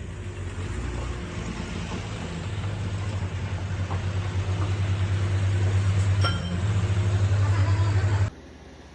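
Concrete mixer truck's engine running steadily with a low rumble, growing louder, with a few sharp clicks about six seconds in; it cuts off suddenly near the end.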